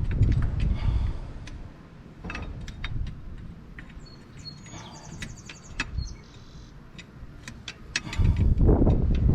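Scattered light metallic clicks and clinks of hand tools at work on an engine, with low rumbling knocks at the start and again from about eight seconds on. A thin high chirping sounds briefly in the middle.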